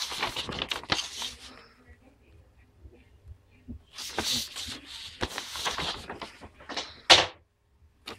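Paper rustling and crinkling as printed sheets are handled and turned close to the microphone, in two stretches with a lull between. A sharp, loud crackle comes about seven seconds in.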